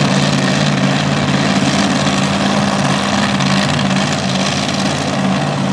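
Supercharged engine of a super modified 4x4 pulling truck idling steadily at the line.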